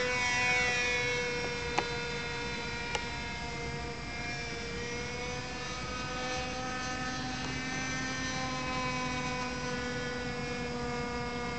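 Small engine of a radio-controlled model airplane in flight: a steady, high-pitched buzzing drone, its pitch dropping as the plane passes near the start, then holding steady with a slight waver. Two short sharp clicks come at about 2 and 3 seconds in.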